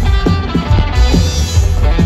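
Rock band playing live over a PA: electric guitar over drums, with a heavy low end and a steady beat.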